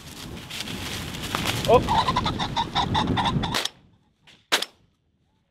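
Rooster ring-necked pheasant flushing: a rush of rapid wingbeats with its harsh, repeated cackle, which stops abruptly. About a second later comes a single sharp shotgun blast.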